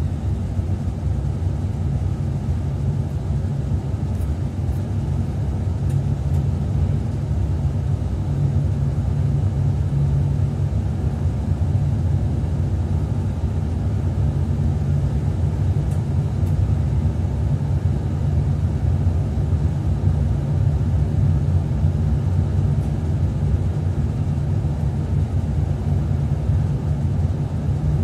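Train running steadily along the track, heard from inside the driver's cab: an even, low rumble of the wheels and running gear.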